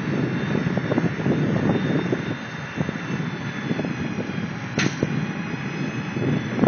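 Heavy farm vehicle running under way with a steady rumble and frequent irregular rattles and knocks, with a brief high hiss about five seconds in.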